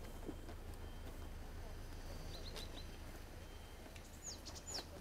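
Low, steady rumble of an electric scooter riding slowly along a paved path. Small birds give a few short chirps about halfway through and two quick falling whistles near the end.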